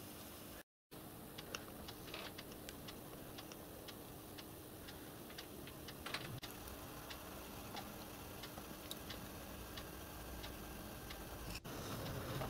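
Faint, irregular light clicks and ticks of small steel and brass parts being handled and fitted on a small cast-iron lathe headstock, over a low steady hum.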